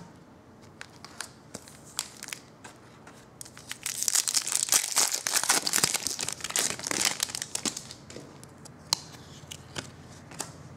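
Plastic wrapper of a hockey card pack being torn open and crinkled by hand, loudest for about four seconds in the middle. Light clicks come before and after it.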